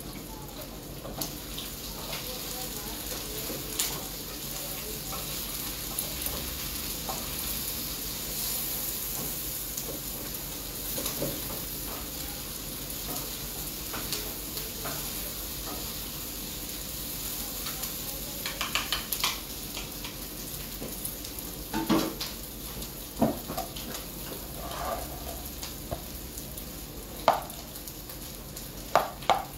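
Liver and onions frying in a pan with a steady sizzle, with sharp clicks and knocks from a spatula or knife now and then, most of them in the second half.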